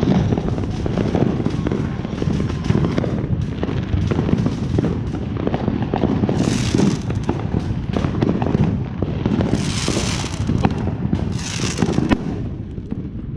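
Fireworks and firecrackers going off all around: a dense, continuous run of pops and bangs over a low rumble, with spells of hissing about six, ten and eleven and a half seconds in.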